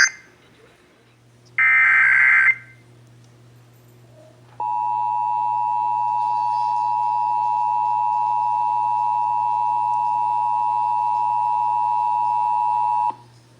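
Emergency Alert System digital data burst, a harsh warbling screech about a second long, starting about a second and a half in. About two seconds later the EAS two-tone attention signal (853 and 960 Hz together) comes on and holds steady for about eight and a half seconds, then cuts off sharply near the end.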